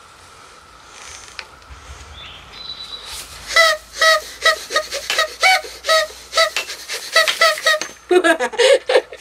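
Party blower tooted in a quick string of short toots, all at the same pitch, about two a second, starting a few seconds in. A short stretch of voice follows near the end.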